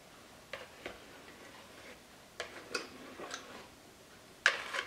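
Wire whisk and plastic bowls giving a few faint, scattered clicks and taps while pancake batter is poured from one bowl into another, with a louder click near the end.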